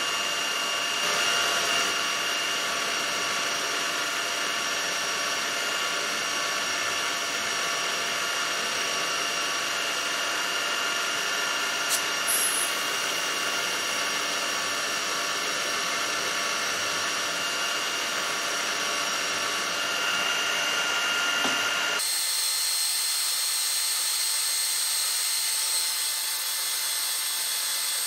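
Milling machine spindle running steadily with a whine of several steady tones while a 2.5 mm carbide drill bores into hardened chuck jaws, throwing short, crisp chips. About 22 seconds in, the lower part of the sound drops away abruptly and only a higher whine is left.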